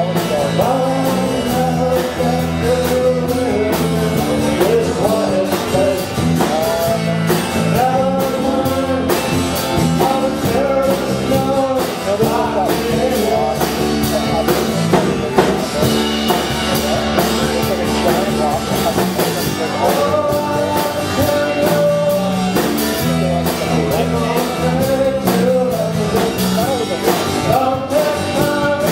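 A live band playing a country-rock song: strummed acoustic guitar, bass guitar and drums, with a man singing the lead vocal.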